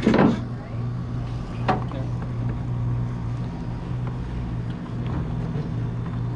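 Sea-Doo jet ski engine running steadily with a low hum. There is a short loud knock right at the start and a sharper one just under two seconds in.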